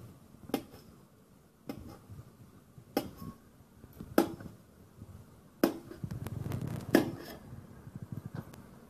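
Knife slicing boiled besan gatte (gram-flour dough rolls) on a steel plate, the blade knocking on the metal as each cut goes through: six sharp knocks, a little over a second apart.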